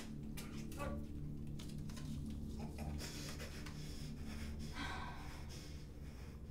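A man's muffled breathing and grunts through a hand held over his mouth, with rustling and the rub of tape as his mouth is taped shut, over a steady low drone.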